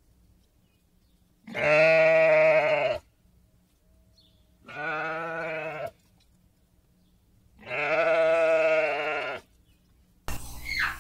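Sheep bleating: three long bleats a few seconds apart, the middle one quieter than the other two.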